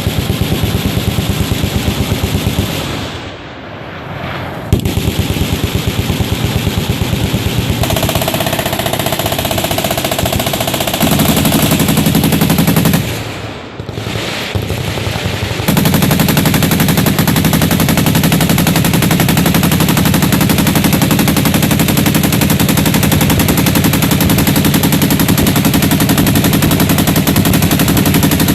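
Machine guns firing long strings of rapid automatic fire, shots overlapping densely, with two brief lulls, about three seconds in and near the middle, before the fire grows heavier and continuous.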